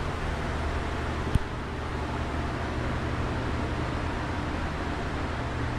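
Steady low hum under a rushing noise, with one sharp click about a second and a half in.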